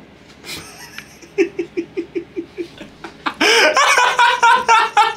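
A young man laughing: a quick run of short, quieter chuckles, then loud, hearty laughter from about three and a half seconds in.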